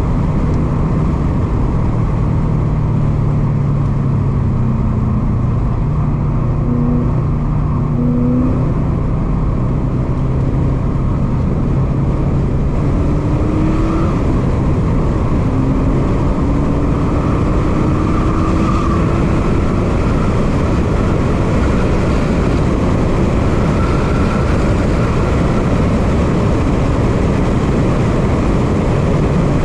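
Inside the cabin of a 2017 Subaru WRX STI, its turbocharged 2.5-litre flat-four engine runs hard under load, mixed with heavy wind and road noise. The engine note climbs steadily in pitch through the middle as the car accelerates.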